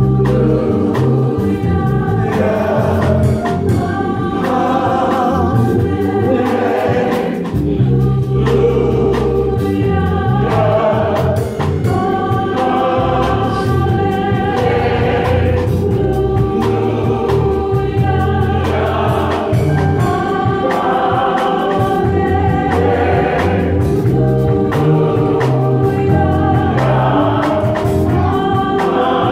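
Gospel choir singing with a band, with strong bass and a steady beat.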